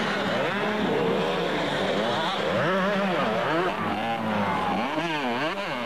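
Two-stroke motocross bikes racing, their engines revving up and falling back repeatedly as they take the track, with more than one bike heard at once.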